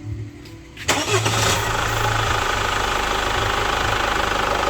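Chevrolet Captiva diesel engine starting about a second in, then running at a steady idle.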